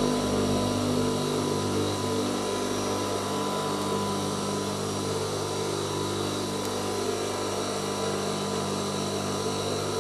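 Electric motor of an industrial sewing machine humming steadily while the machine is not stitching.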